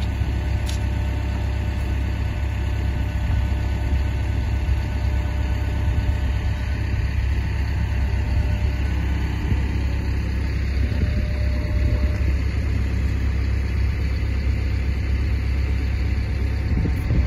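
Travel lift's engine idling steadily with a constant low rumble.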